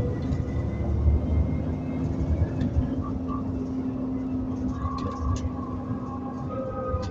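Interior running noise of an Alexander Dennis Enviro400 double-decker bus on a Trident 2 chassis: the engine and drivetrain run with a steady hum and a held whine, and a few sharp rattles come about five seconds in.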